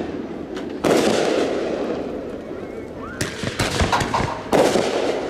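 Consumer aerial fireworks bursting: a loud boom about a second in, a cluster of sharp cracks around three to four seconds in, and another loud boom near the end, each trailing off in a long echo.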